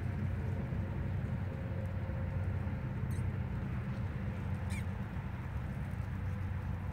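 Steady low rumble of wind buffeting the microphone, with two brief high squeaks, one about three seconds in and one about five seconds in.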